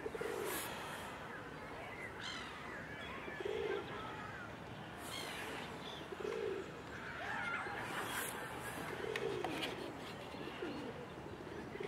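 Pigeons cooing, a short low coo every few seconds, over scattered chirps from other birds.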